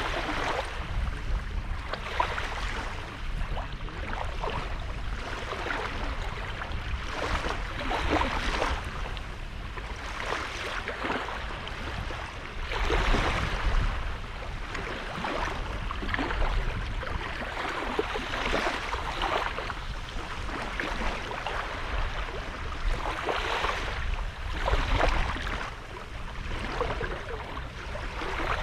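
Small sea waves washing onto the beach, an irregular series of splashing surges every couple of seconds over a steady low rumble.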